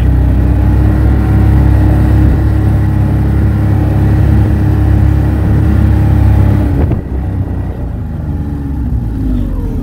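Ski-Doo Skandic snowmobile's 900 ACE three-cylinder four-stroke engine running under steady throttle, heard from the rider's seat. About seven seconds in the throttle eases off and the engine drops to a quieter, lower run.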